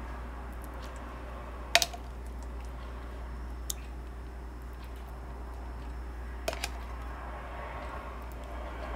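A metal spoon clinking against a stainless steel bowl while mayonnaise-style dressing is scooped in. There is one sharp clink about two seconds in and two softer ones later, over a steady low hum.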